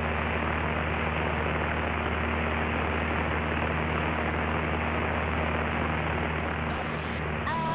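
Cessna 152's four-cylinder Lycoming engine and propeller droning steadily in flight, heard inside the cabin, with an even hiss over the low hum.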